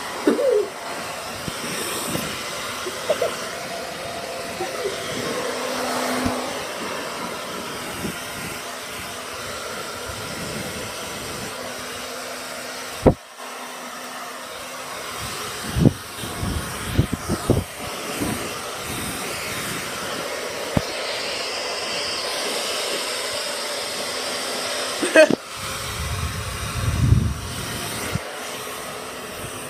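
Hair dryer running steadily while a wet dog is dried on towels. Several sharp knocks and bumps from handling come through it, the loudest about halfway through and again near the end.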